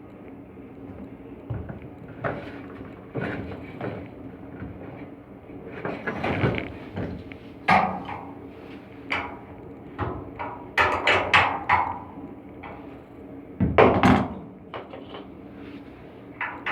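Irregular knocks and clanks from work on an air handling unit's blower during a V-belt change, including a quick run of four or five strikes about two-thirds of the way in and a heavier knock soon after, over a steady low hum.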